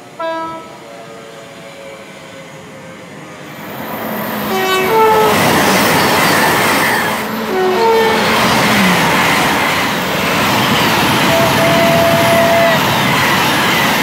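Great Western Railway Hitachi intercity express train (Class 800 family) passing through at speed and sounding its two-tone horn. A short horn note comes right at the start. Two low-then-high blasts follow about three seconds apart as the loud rush of the train's wheels and air builds and holds.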